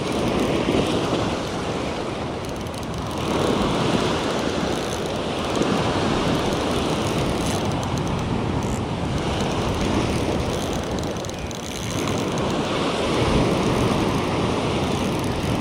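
Ocean surf washing and breaking over the rocks below, rising and falling in surges every few seconds, with wind buffeting the microphone.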